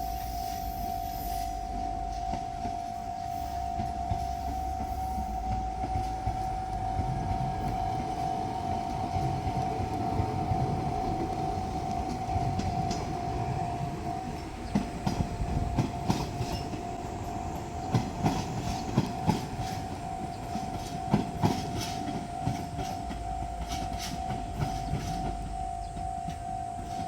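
Japanese level-crossing warning bell ringing on one steady tone while a diesel railcar train rumbles past. From about 15 to 22 seconds in, its wheels click sharply over the rail joints.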